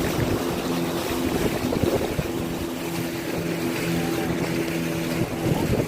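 Speedboat engine running steadily at speed, a constant hum, with wind buffeting the microphone and irregular low thumps over it.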